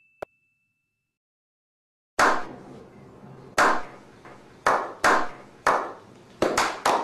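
A small group of men clapping slowly. Single sharp claps, each with an echoing tail, come more than a second apart at first, then quicken into faster clapping near the end. A single short click sounds just after the start, before the clapping.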